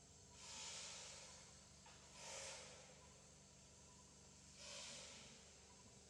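Three faint breathy puffs of air, about two seconds apart, the first the longest.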